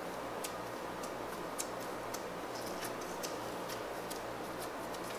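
Fingertips poking and pressing into clear slime covered in gold leaf foil, giving small sharp clicks and crackles, irregular, about two a second, over a faint steady hiss.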